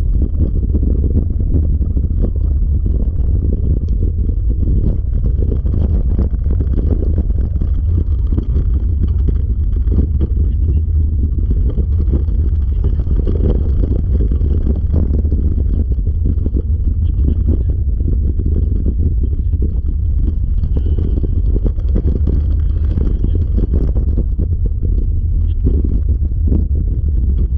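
A dryland dog rig rolling over the trail: a steady low rumble from its wheels and wind buffeting the microphone, with no pauses.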